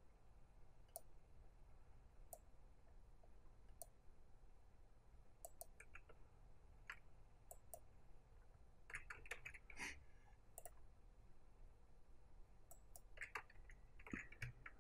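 Faint, scattered computer mouse clicks as anchor points are placed, with a quick run of several clicks around the middle and another near the end, over a low steady hum of quiet room tone.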